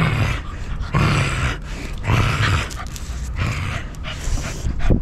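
A dog's short play growls and huffs, several in a row at about one a second, as it rolls about being rubbed.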